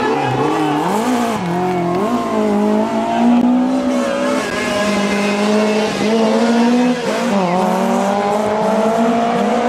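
BMW E30 M3 rally car's four-cylinder S14 engine under hard acceleration. Its pitch falls and rises sharply with gear changes and lifts, about a second in and again around seven seconds, and in between climbs steadily as it revs out.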